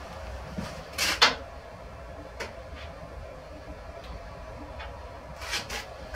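A sharp knock about a second in, then a few faint clicks and taps, two of them close together near the end, over a steady low hum.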